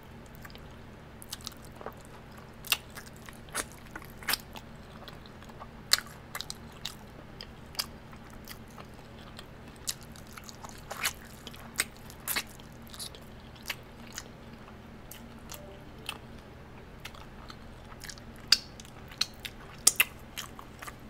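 A person biting and chewing sauced chicken wings close to the microphone: irregular sharp mouth clicks, the loudest few near the end, over a faint steady low hum.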